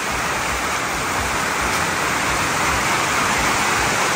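Heavy monsoon rain pouring down: a steady, dense rush of rain.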